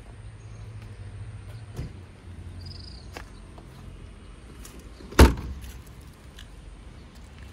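The boot lid of a 2006 Honda Civic sedan slammed shut: one loud thud about five seconds in. A lighter knock comes near two seconds in.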